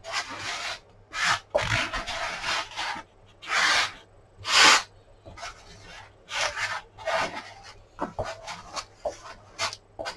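Small glue spreader scraping contact adhesive across a polystyrene foam board in repeated strokes. The strokes are longer at first and turn shorter and quicker in the second half.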